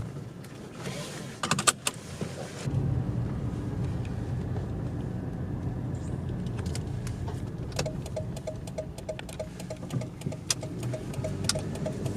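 Car engine and cabin rumble heard from inside the car, coming in suddenly about two and a half seconds in after a few sharp clicks. From about eight seconds a steady, quick ticking runs over the rumble.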